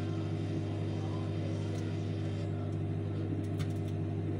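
Microwave oven running: a steady low electrical hum, with a few faint clicks partway through.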